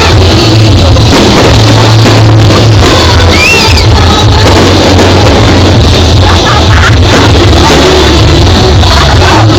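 Loud rock music with singing over a heavy bass, recorded so hot that it is overloaded, with a crowd faintly underneath.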